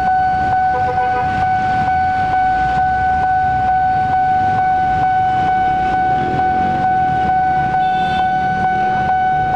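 Railway level-crossing warning signal sounding a steady high tone with a light ticking about twice a second, over the low rumble of a passenger train's coaches rolling away along the track.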